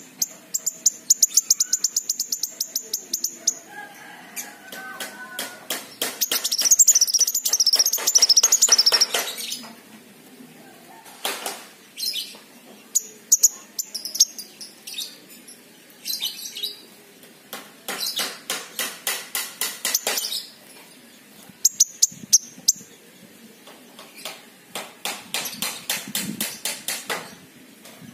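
King Konin songbird singing in bursts of very high, rapid trilling and chattering notes, about half a dozen phrases with short pauses between. The longest and loudest phrase comes about a third of the way in.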